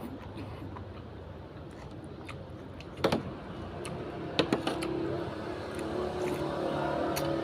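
A few sharp clinks, typical of a spoon or chopsticks against a noodle bowl, and a motor vehicle's engine hum that builds through the second half.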